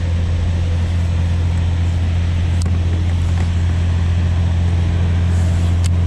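Steady low rumble of water pouring over a low dam's spillway, with two light clicks partway through and near the end.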